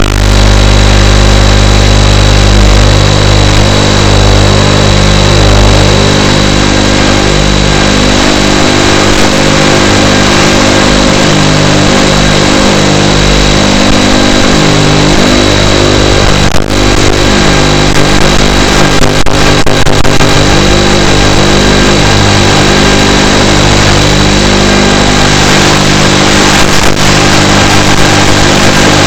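FPV quadcopter's electric motors and propellers running with a steady, loud whine, with a few sharp knocks about halfway through and again near the end.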